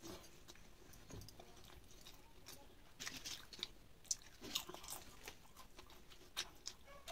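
Faint close-up chewing of a mouthful of rice and jackfruit curry, with a run of short crisp crunches from about three seconds in as a piece of papad is chewed.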